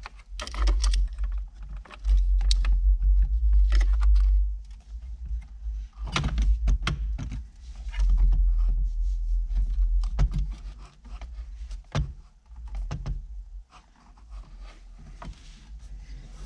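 Factory Ford Mustang radio's metal chassis being wiggled and tugged out of the dash opening, free of the rubber mount held by pressure at its back: irregular clicks, knocks and rattles of metal against plastic trim, with stretches of low rumble from the tugging.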